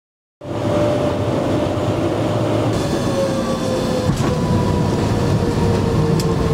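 Airliner cabin noise from a window seat: a loud steady rush of engines and rolling, with a whine that slowly falls in pitch, as the aircraft slows on the runway. It cuts in suddenly about half a second in.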